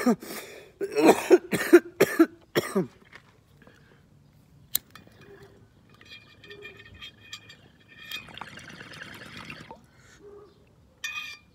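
A man coughing hard, about six harsh coughs in quick succession over the first three seconds, from smoke taken in through a glass water bong. One more short cough comes near the end.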